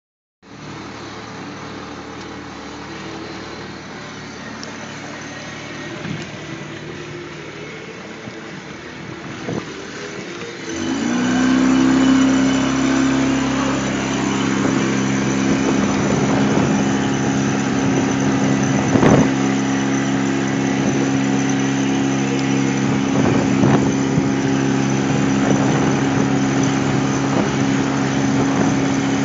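Suzuki outboard motor running, quieter at first, then throttled up about eleven seconds in: its pitch rises briefly and settles into a louder, steady note. A single sharp knock comes about nineteen seconds in.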